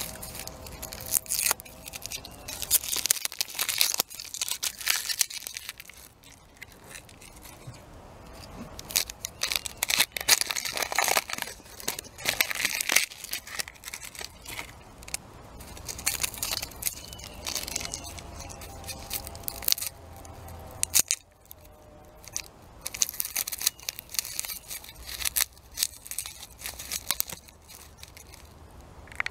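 Crisp tearing and crackling of a raw onion close to the microphone: irregular runs of sharp snaps and crackles with short quieter stretches between.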